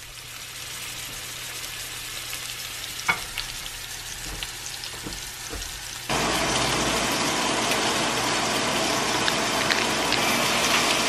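Steaks searing in a cast iron skillet, a steady sizzle with small crackles; it turns suddenly louder and denser about six seconds in.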